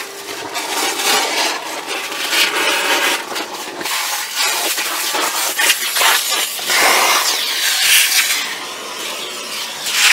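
Irregular scraping and crunching as rotten, waterlogged wood debris is dug out of a fiberglass boat hull by hand.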